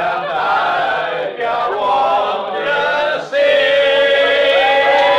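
Background music: a group of voices singing a wordless choral chant, swelling into a louder held chord about three seconds in.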